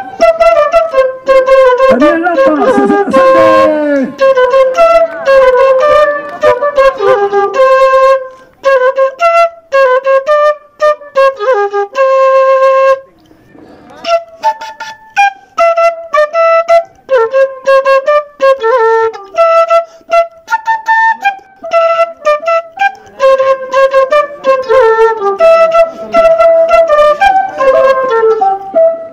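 Flute music for an Andean folk dance: a flute plays a lively, repeating melody of short, clipped notes. The music drops away briefly about halfway through, then starts again.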